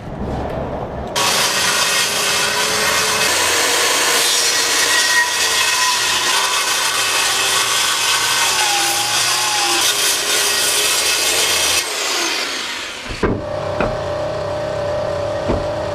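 Handheld circular saw cutting through a sheet of UHMW polyethylene, a steady loud whine and rasp of the blade in the plastic. The cut stops suddenly near the end, leaving a quieter steady hum and a few knocks.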